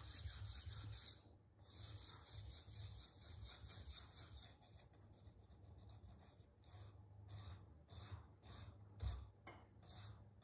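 A Santoku kitchen knife's edge is stroked dry across a 100-micron diamond resin sharpening stone, grinding the bevels back on after the edge was jointed flat. The faint, rasping scrapes come about four a second, with a short pause just over a second in. In the second half they slow to separate strokes.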